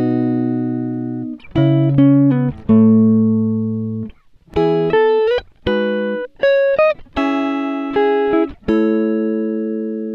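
Background music: a plucked guitar playing chords and short phrases, each note struck sharply and ringing out as it fades.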